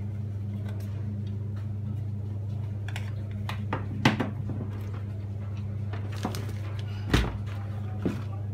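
Scattered plastic clicks and knocks as a power adapter's cable is handled and its plug pushed into the back of a card printer, the loudest about seven seconds in, over a steady low hum.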